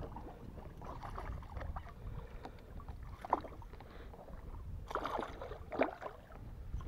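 A hooked fish splashing and thrashing at the water's surface while it is reeled in beside a kayak, with sharper splashes about three, five and six seconds in over a low steady rumble.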